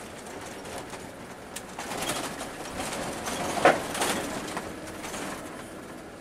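Cabin noise of a Scania K360 coach under way, a steady rumble and rush of engine and road, swelling in the middle with one brief sharp sound a little past halfway.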